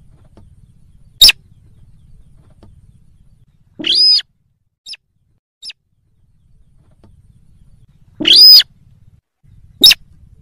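Buff-banded rail (sintar) calls played as a hunting lure recording. The calls are loud, separate and squeal-like: a short one about a second in, longer ones around four and eight seconds in with two faint short notes after the first, and another short call near the end.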